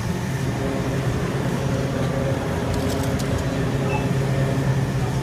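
Steady low hum of refrigeration machinery at a glass-door drinks cooler, with a few faint ticks about three seconds in.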